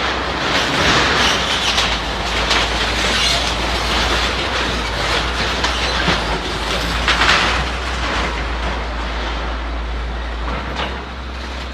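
Crawler bulldozer at work on a demolition: its engine running under continuous metallic grinding and clanking, which surges louder about a second, three seconds and seven seconds in.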